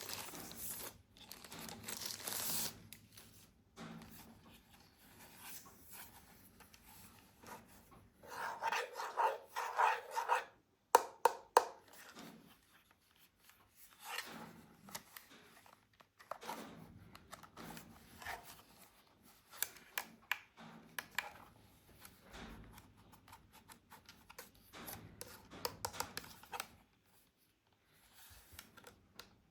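Toy packaging being opened by hand: intermittent tearing, rustling and rubbing of cardboard and plastic, with about three sharp clicks a little after ten seconds in.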